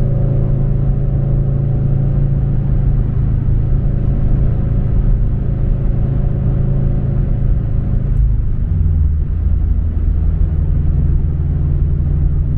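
Subaru BRZ's flat-four engine and MAperformance 3-inch cat-back exhaust heard from inside the cabin while cruising, a steady low rumble. About eight seconds in, the revs drop abruptly and the note settles at a lower, steady pitch.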